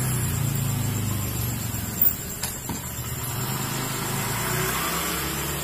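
A machine running with a steady low hum, with one sharp knock about two seconds in.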